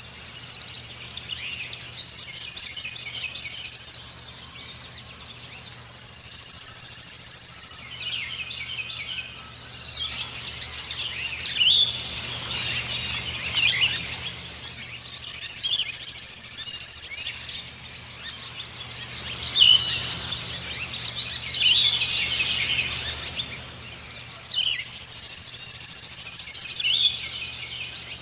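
Birds calling and chirping, with a high, buzzy trill that comes in bouts of about two seconds, starting and stopping again and again.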